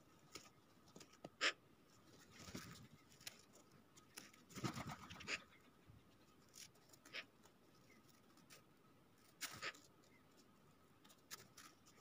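Magpies pecking and hopping on snow close by: sparse faint taps and scuffles, with a louder cluster of rustling about halfway through and a sharp tap late on.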